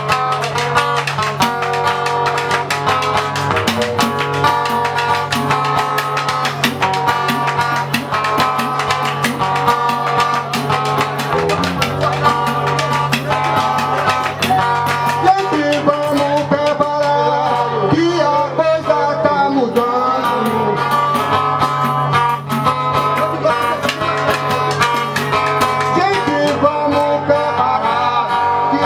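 Samba de roda music: a plucked string instrument playing over steady percussion, with voices singing in the second half.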